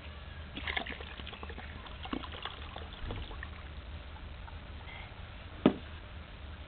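Light handling knocks and clicks over a steady low rumble, then one sharp knock on a plastic paddling pool about five and a half seconds in.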